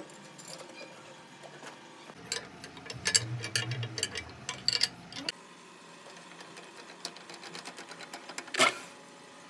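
Hand-tool handling on a steel drill jig and brake drum: metal clinks and clicks as a wrench works the clamp nut, over a low hum in the middle. Then a run of quick light ticks and one sharp metal knock near the end.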